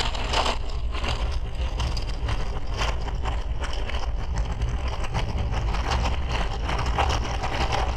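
Wind buffeting the microphone: a steady heavy rumble with a gusty, uneven hiss over it.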